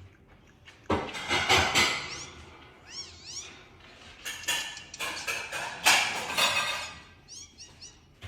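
Parrot calling: harsh, loud squawks about a second in and again near six seconds, with quick repeated chirps in between and near the end.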